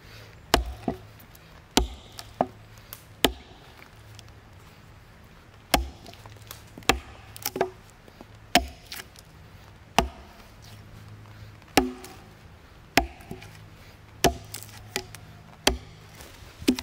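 Axe chopping into a log, cutting a notch: about a dozen sharp blows of steel into wood, one every second or so at an uneven pace.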